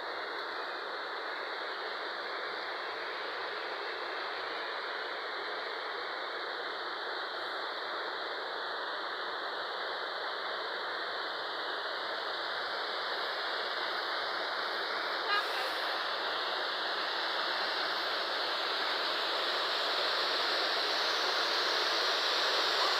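Waterfall rushing steadily, slowly growing louder toward the end, with a single brief click about fifteen seconds in.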